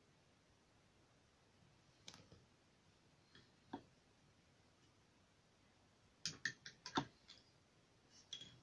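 Light clicks and taps of painting gear being handled at the easel: two single clicks, then a quick run of about six clicks past the middle, and two more near the end.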